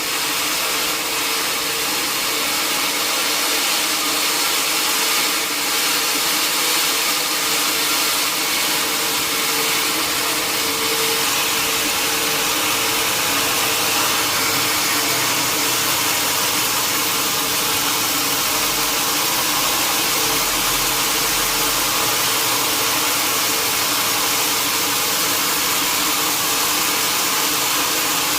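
Sawmill saw machinery running steadily: an even, loud hiss with a constant hum underneath, unbroken throughout.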